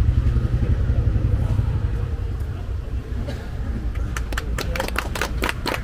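Low rumble of road traffic, with a few people clapping from about four seconds in, as the ribbon is cut.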